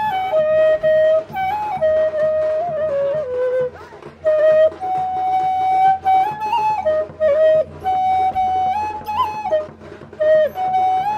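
Background music: a solo flute playing a slow melody of held notes with small slides and ornaments, in short phrases with brief breaks, over a low steady drone.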